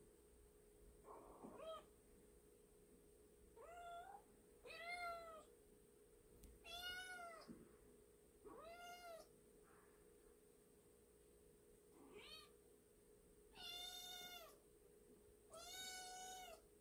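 Kitten meowing repeatedly: about eight high-pitched meows, one to two seconds apart, the last few longer and louder.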